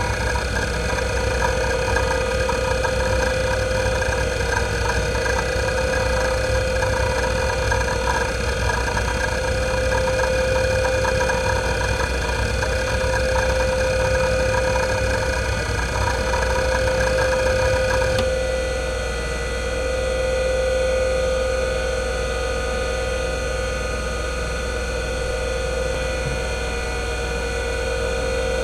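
IBM WDA-L42 40MB single-platter hard drive seeking rapidly under a random-seek test: a dense chatter of head movements over the steady hum of its 3,600 rpm spindle. About 18 seconds in, the seeking abruptly stops and only the spinning drive's hum is left.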